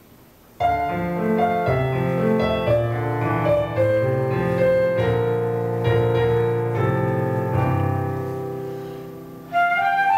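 Roland digital piano playing slow, sustained chords. It starts suddenly about half a second in, dies away, then comes back louder near the end.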